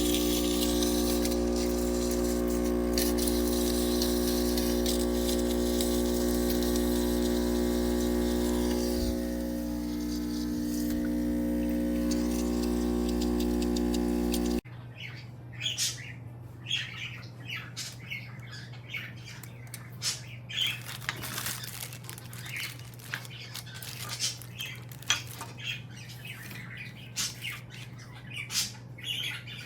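QJA espresso machine running: a loud, steady electric pump hum for about fifteen seconds stops abruptly. It gives way to quieter, irregular hissing, spitting and squeaking, like a steam wand frothing milk.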